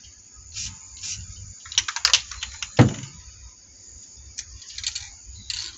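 Short hisses of an aerosol spray-paint can fired in quick bursts, mixed with sharp clicks and a knock from cans being handled.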